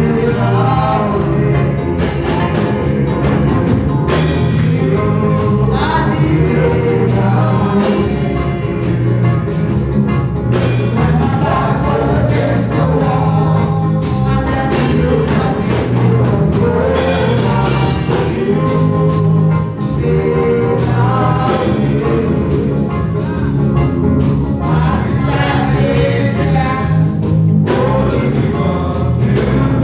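Gospel music: singing over a steady instrumental band accompaniment.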